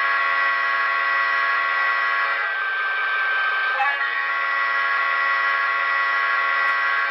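Paragon 4 sound decoder in an HO-scale EMD GP35 model playing the locomotive's multi-chime air horn through its onboard speaker, in two long blasts: the first ends about two and a half seconds in, and the second starts about a second and a half later and holds to the end. The horn has a slightly fouled chord.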